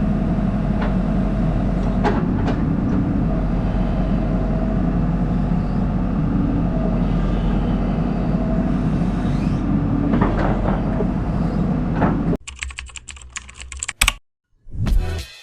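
Hitachi excavator engine running steadily, with a few sharp knocks and clicks from the machine. About twelve seconds in it cuts off suddenly to electronic music.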